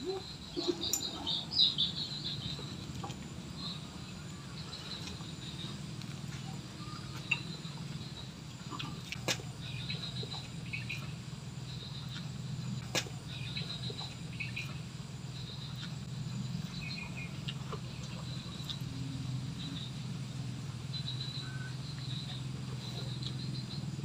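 Fried pigeon being torn apart by hand and chewed, with a few sharp clicks about 9 and 13 seconds in, over a steady low hum and scattered high chirping.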